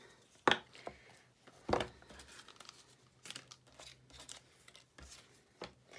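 Craft supplies being moved about on a tabletop: a few light knocks and clatters, the loudest a little under two seconds in, with paper and card rustling between them.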